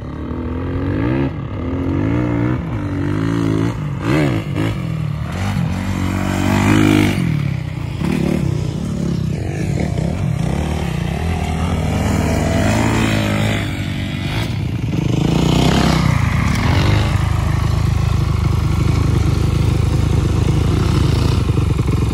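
Dirt bike engines revving up and down as a bike rides across sand dunes. About fifteen seconds in, a louder, steadier engine note from a bike close by takes over.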